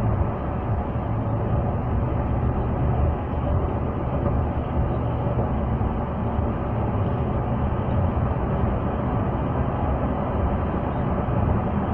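Steady road and engine rumble from inside a moving car's cabin.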